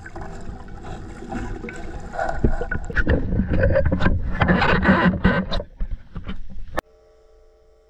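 Water sloshing and splashing against a camera held at the waterline, with irregular knocks and wind. It cuts off suddenly near the end, leaving a faint steady hum.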